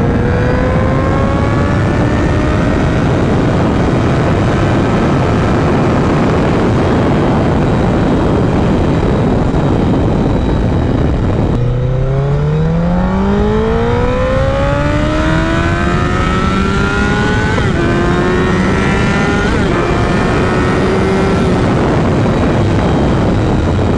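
Honda CBR1000RR's inline-four engine under heavy wind rush. It first holds a slowly rising pitch. About halfway through it is pulling hard in a steep rising run, broken by a couple of quick upshifts before it levels off.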